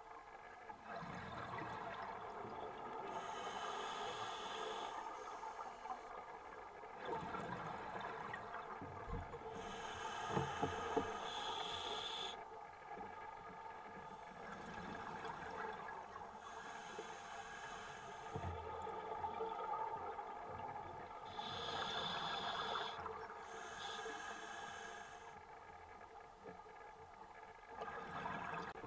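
Scuba diver breathing through a regulator underwater: a hissing inhalation and a bubbling exhalation, one breath every few seconds.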